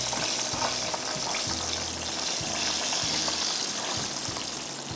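Hot oil sizzling steadily in a frying pan on a gas burner as a breaded chicken fillet is deep-fried and lifted out with metal tongs, with a few faint clicks; the hiss eases slightly near the end.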